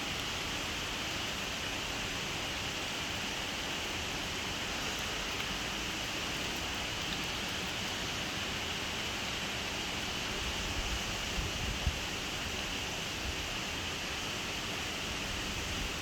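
Steady hiss of rain mixed with hail falling. A few brief low bumps come about eleven seconds in.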